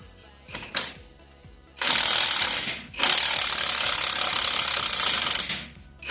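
Impact wrench hammering on a bolt in two bursts, a short one and then a longer one of about two and a half seconds, as the bolt is broken loose during the axle teardown.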